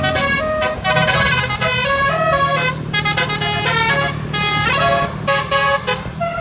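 Basuri 'telolet' multi-tone bus horn playing a fast melody of short stepped notes, over a steady low drone.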